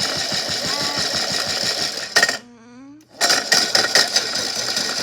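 Toy washing machine running with a big rock inside its drum: rapid, regular knocking, about eight knocks a second, over a steady motor hiss. It cuts out for about a second midway, then starts up again.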